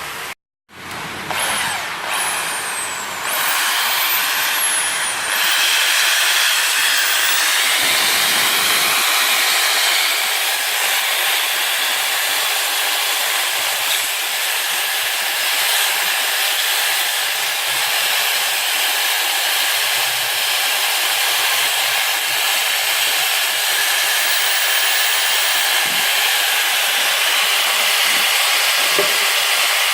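A cleaning tool working on engine valves gives a steady, loud hiss that runs without a break from about a second in.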